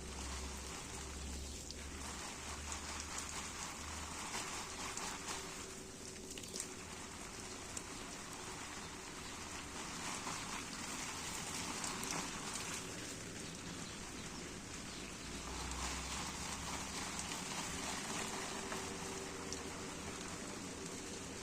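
Steady rain pattering, a dense hiss of drops that swells and eases every few seconds.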